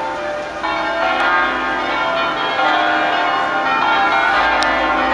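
The bells of the Basilica of Sant'Anastasia ringing a concert in the Veronese system, several tuned church bells sounding in overlapping notes. Fresh strikes come in about half a second in, and again near the middle, louder.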